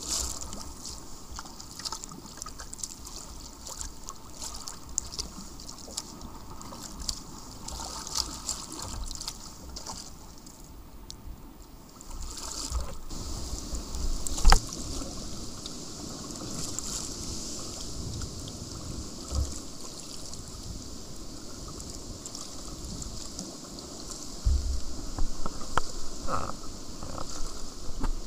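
Water splashing and trickling around a sea kayak out on the water, with gusts of wind on the microphone. A single sharp knock about halfway through.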